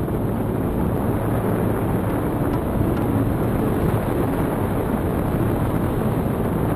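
Steady wind rumble and buffeting on an action camera's microphone from the airflow of a paraglider in flight.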